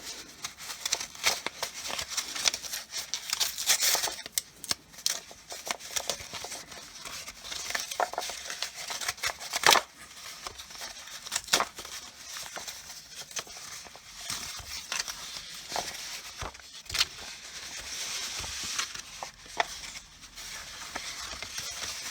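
Packaging being handled and unwrapped: crinkling and rustling of paper or plastic wrap, with many small clicks and taps and a sharper knock about ten seconds in.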